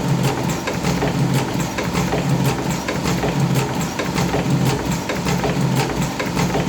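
Machinery running steadily, with a low hum and a fast, regular clicking several times a second.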